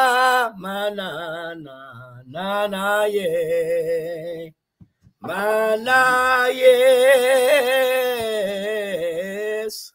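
A man singing alone without accompaniment in a slow worship style: a few held phrases, a short break about halfway, then one long note with a wavering pitch that stops just before the end.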